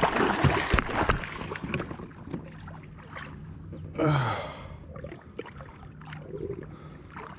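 Handling noise and water sounds in a kayak while an angler fights a large blue catfish on a bent rod, loudest in the first second or so. About four seconds in there is a short strained grunt from the angler, falling in pitch.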